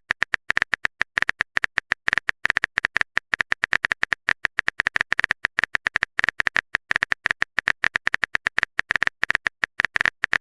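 Typing sound effect: rapid, uneven keyboard clicks, several a second, each at the same bright pitch, stopping just before the end.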